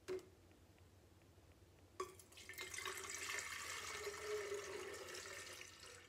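Water poured from a plastic jug into a tall glass cylinder vase, splashing steadily for about four seconds. A light knock comes at the start and another just before the pour begins.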